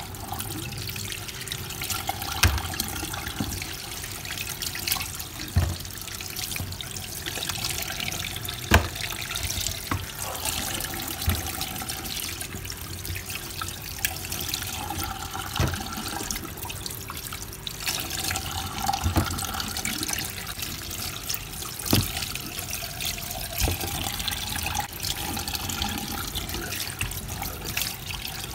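Kitchen tap running steadily into a stainless-steel sink while raw fish pieces are rinsed by hand under the stream, with a few short knocks scattered through.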